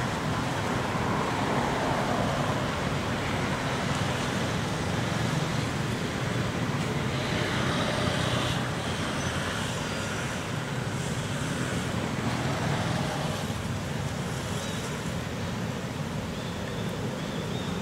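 Steady outdoor background noise with a low rumble, even throughout, with no distinct sound standing out.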